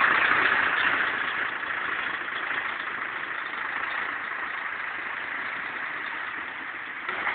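Heavy truck hauling an oversize tank load on a multi-axle trailer rolling slowly past at close range, with a steady engine and rolling noise. It is loudest at first and eases off over the first couple of seconds as the truck moves on.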